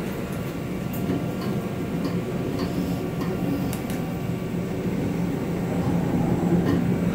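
Queensland Rail IMU 160 electric train running, heard from inside its toilet compartment: a steady rumble and low hum with a few faint clicks.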